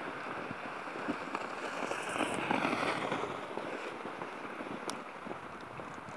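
Outdoor wind rushing steadily, with a gust swelling and fading about two seconds in, and a single sharp click near the end.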